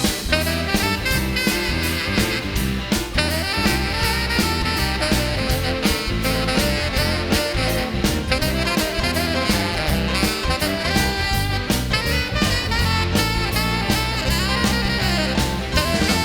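Upbeat band music with a steady beat on drums and bass, with a saxophone in the mix.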